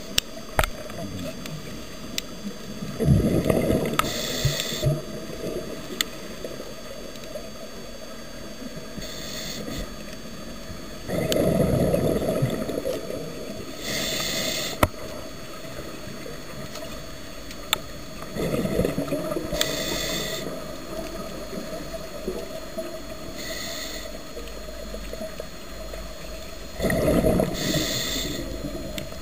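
Scuba diver breathing through a regulator, heard through an underwater camera housing. Four bubbling rumbles of exhaled air come about eight seconds apart, with short hissing inhalations between them.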